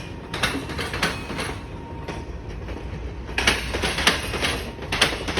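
Train wheels clattering over a railway diamond crossing, with sharp metallic clacks coming in clusters as each bogie crosses the rail gaps, over a steady low rumble of the moving train. The loudest cluster comes a little past the middle.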